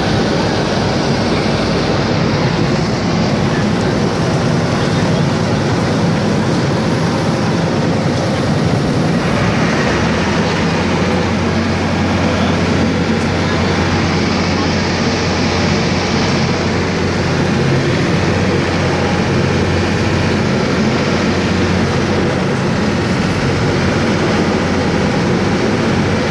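Ferryboat under way: a steady engine drone under a broad rushing wash of water along the hull. A low hum grows stronger about nine seconds in.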